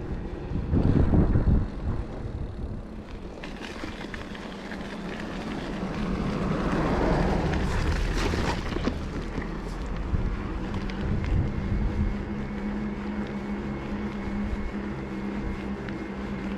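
Riding noise from an e-bike: wind on the microphone and tyre rumble. A broad rushing sound swells and fades around the middle, and a steady hum comes in about ten seconds in.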